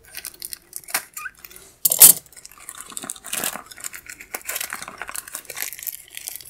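Clear plastic packing tape and cardboard wrapping crinkling and crackling as hands work at a small taped package, with one sharp, louder snap about two seconds in.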